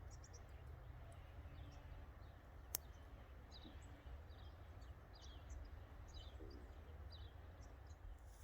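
Faint outdoor ambience: short high bird chirps scattered throughout over a low steady rumble, with one sharp click just under three seconds in.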